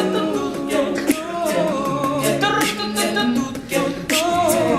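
Men's a cappella group singing the wordless instrumental riff of a pop song in harmony, with vocal percussion (beatboxing) keeping a steady beat.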